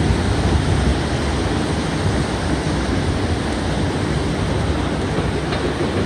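Steady rushing noise of surf and wind, with a low rumble underneath.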